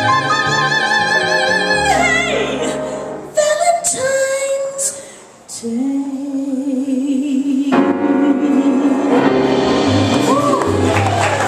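A woman singing jazz live over piano and upright bass. She holds a high note with wide vibrato, slides down about two seconds in, then holds a lower note with vibrato, and the accompaniment fills in more fully from about eight seconds in.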